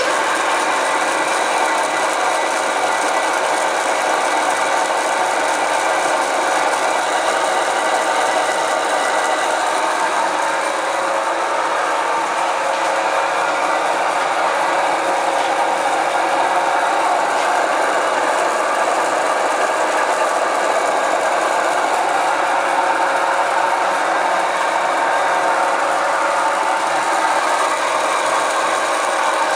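Mini metal lathe starting up suddenly and running steadily with its chuck spinning. It makes a constant mechanical hum with several steady whining tones.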